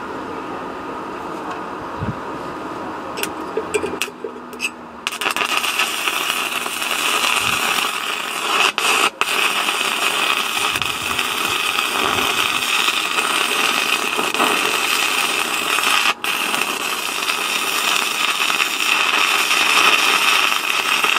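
Stick (MMA) welding arc from a 2 mm Paton electrode at 70 A. It strikes with a few short starts about four seconds in, then burns with a steady crackling hiss, broken by brief drop-outs twice near nine seconds and once around sixteen, and cuts off sharply at the end.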